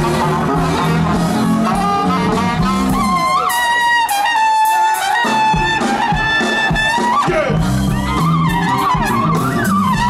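Live funk band playing, with a trumpet solo over a repeating bass line. About halfway through, the trumpet holds one long high note while the bass drops out briefly, then the groove comes back in.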